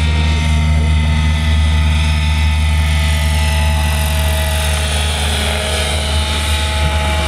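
Radio-controlled scale model UH-1B Huey helicopter in flight: a steady low rotor drone under a high engine whine, the whine's pitch falling slightly in the last couple of seconds.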